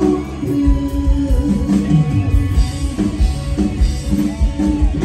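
Live band music through a large outdoor PA: an instrumental passage with a plucked, guitar-like lead over bass and a steady drum beat.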